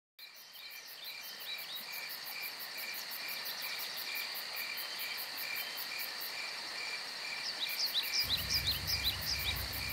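Crickets and other insects chirping steadily in several overlapping, evenly repeating pulses. Near the end a few short rising chirps come in, along with a low rumble.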